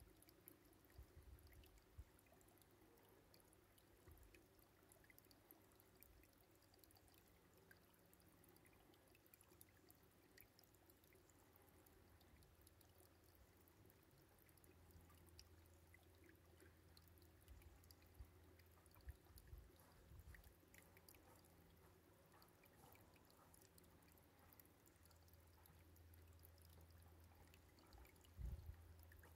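Near silence: faint outdoor background with a low hum and a few soft low thumps.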